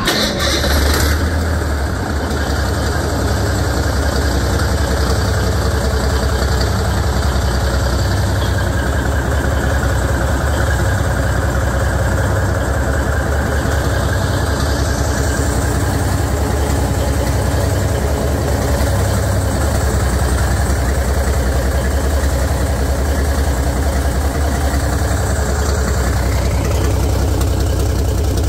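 A 1986 Cummins small-cam NH/NT 855 six-cylinder diesel, 14 litres, running steadily at idle on a test stand during its test run.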